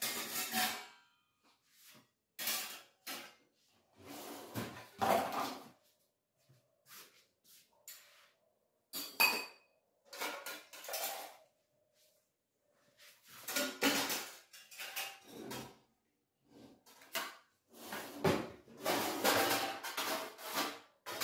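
Stainless-steel utensils and vessels clattering and clinking as they are picked up and set down on a kitchen counter, in irregular bursts with pauses. A short metallic ring about nine seconds in.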